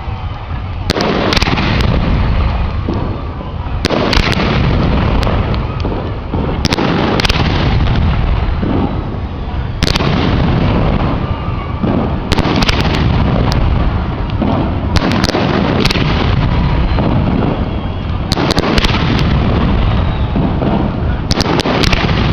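Aerial fireworks shells bursting in quick succession, a dense run of booms with sharp cracks layered over a continuous low rumble.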